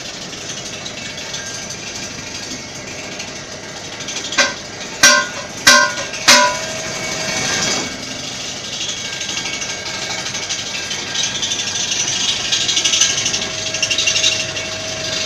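Four hammer blows on a steel wheel rim, about two-thirds of a second apart, each leaving a metallic ring, over a steady hiss.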